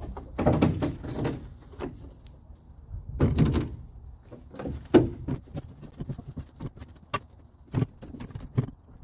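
Fiberglass Gheenoe hull rubbing and knocking against a boat trailer as it is shifted and tipped off: two bursts of scraping, a sharp knock about five seconds in, and a few lighter knocks near the end.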